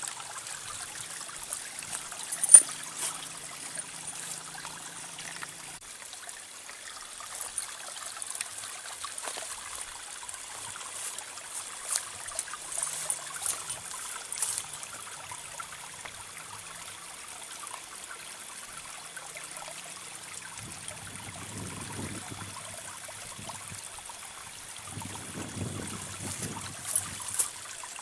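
Steady outdoor rushing hiss, like running water, with a few sharp clicks. There are short stretches of low rumble about three-quarters of the way through and again near the end.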